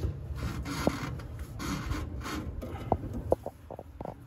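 Rubber hose rubbing and scraping against the truck's steel frame as it is pushed and fed along the underside by hand, in several short swishes, followed by a few sharp clicks or taps near the end.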